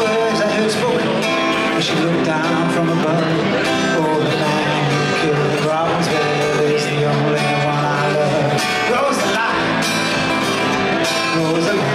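A song played on acoustic guitar with singing.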